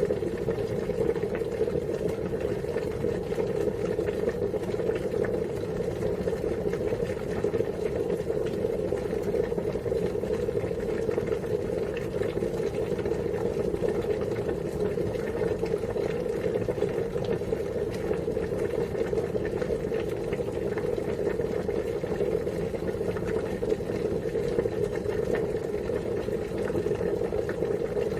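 Water at a steady rolling boil: dense, continuous bubbling that stays even throughout.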